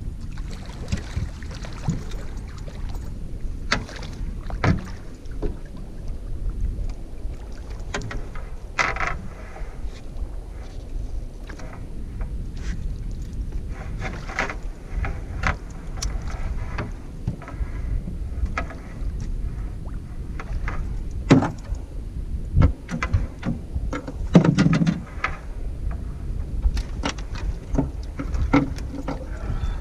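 Low rumbling wind and water noise on a small fishing boat, with scattered knocks and clicks from handling gear on board.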